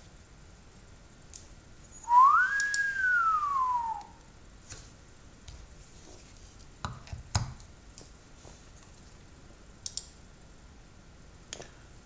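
A person whistles one gliding note of about two seconds, starting about two seconds in: it rises, holds, then slides down. Several seconds later come a couple of dull handling knocks and a few light clicks as the measurement microphone is handled and pushed into its calibrator.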